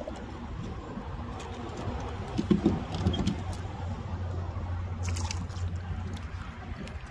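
Wind and choppy water around a kayak, with scattered light clicks and rattles of fishing tackle being handled and a louder knock about two and a half seconds in. A low steady hum runs from about three to six seconds in.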